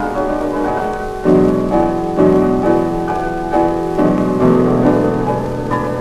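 Slow instrumental background music: sustained chords, a new one entering about every second, the loudest about a second in.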